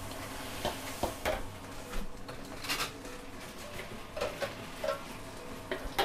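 Metal ladle and spatula clanking and scraping against a wok as food is stir-fried over gas burners, with irregular sharp clanks over a steady sizzle.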